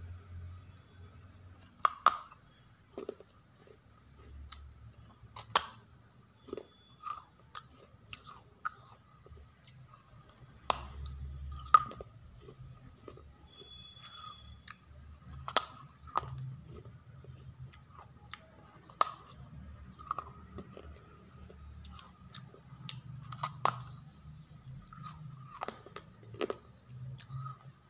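Fired terracotta clay pot being bitten and chewed: sharp, irregular crunches every second or few, the loudest about twelve seconds in, with quieter grinding chewing between them.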